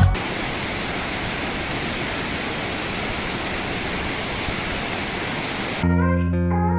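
Steady rush of Manan Ella Waterfall, an even wash of falling water. Almost six seconds in it cuts off abruptly and music with bass and plucked guitar begins.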